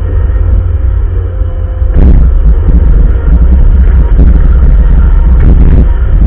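Bobcat loader's engine running with a deep steady rumble that gets louder about two seconds in, with irregular knocks and scrapes on top while plowing snow.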